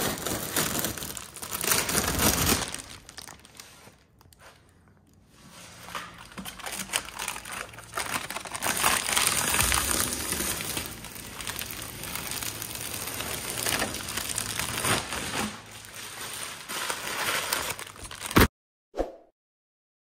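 Clear plastic protective sheeting crinkling and rustling as it is handled and pulled off a car's fender. There is a short lull a few seconds in, and the sound cuts off abruptly near the end.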